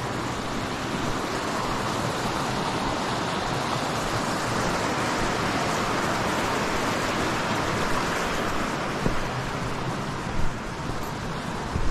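A mountain stream rushing steadily over rocks, with a few short knocks near the end.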